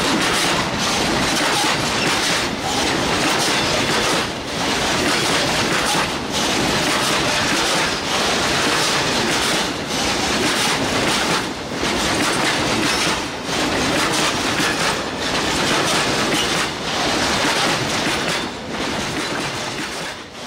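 Steel wheels of passing railway wagons rolling over a bolted rail joint at close range: a loud, continuous clatter with brief dips about every two seconds as successive wagons go by. The clack comes from the wheels crossing the gap in the rail at the joint. The sound falls away near the end as the last wagon clears.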